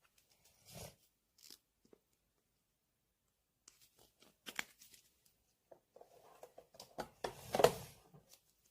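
Close handling noises: scattered small clicks and rustles, then a denser crackling, tearing-like rustle about seven seconds in, the loudest part.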